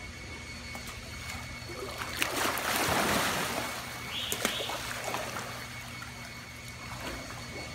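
Golden retrievers splashing in a swimming pool: a burst of loud splashing about two seconds in, lasting a second or two, with lapping and trickling water around it.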